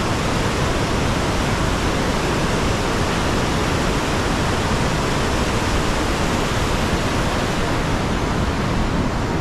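Steady, loud rush of a large waterfall heard from right at its brink: an even wash of falling water with no breaks.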